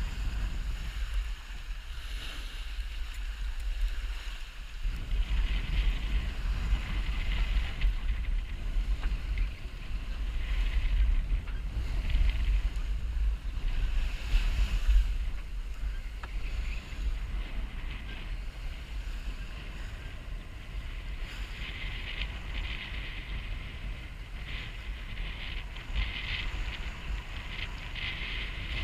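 Wind buffeting a GoPro's microphone in gusts, over the rush and splash of water along the hull of a sailboat under way.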